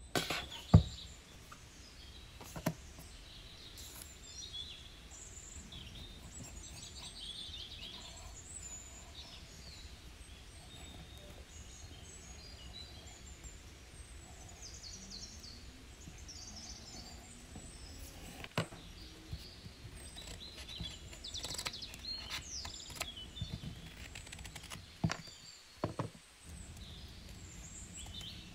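Small birds chirping in the background, short high notes scattered throughout. A few light clicks and taps of hand craft work with pencil, cardstock and scissors, the sharpest about a second in.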